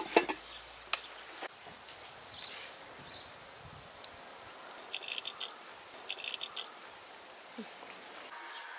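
A metal saucepan clanks as it is set onto a bucket charcoal stove, followed by a few lighter clicks. Then an open-air background with two short bursts of high chirping.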